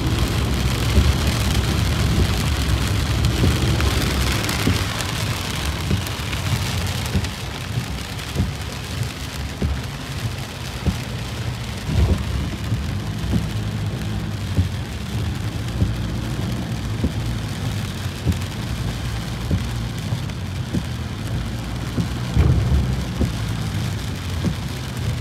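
Heavy rain falling on a car's roof and windshield, heard from inside the moving car: a dense hiss of drops with scattered small ticks over a steady low rumble. The hiss is brighter for the first several seconds, then eases a little.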